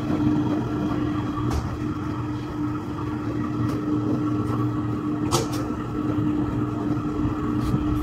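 Large industrial washing machine running: a steady motor hum with a low drum rumble, and a couple of short clicks.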